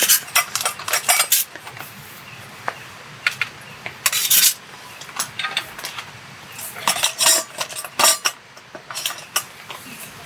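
Cutlery scraping and clinking against dishes or cookware during a meal, in short clusters with quiet gaps between: a bunch in the first second and a half, more at about four seconds, and again around seven to eight seconds.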